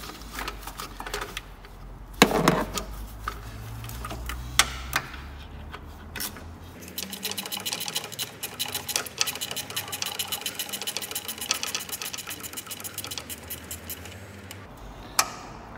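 Hand socket ratchet clicking rapidly and steadily for about eight seconds, starting around six and a half seconds in, as a bolt is run out. Before that come a few sharp metal knocks, the loudest about two seconds in.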